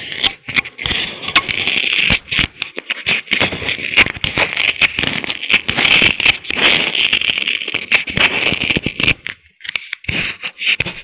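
Crackling, rustling handling noise on a small camera's microphone, with dense irregular clicks over a hiss. It thins to scattered clicks about nine seconds in.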